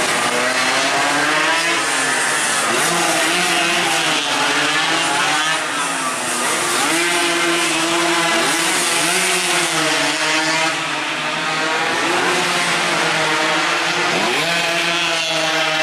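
Several two-stroke 116–125 cc underbone racing motorcycles running hard together, their engines repeatedly rising in pitch and dropping at each gear change, overlapping one another.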